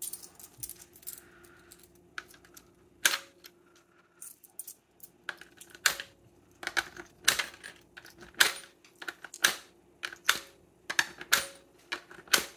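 Coins dropped one at a time through the slot of a digital counting coin jar, each landing with a short, sharp clink, many of them at uneven intervals, coming thicker from about three seconds in.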